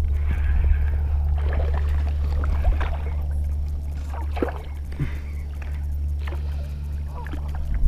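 Hooked largemouth bass splashing and thrashing at the surface several times as it is reeled in on a spinning reel, over a steady low hum that stops just before the end.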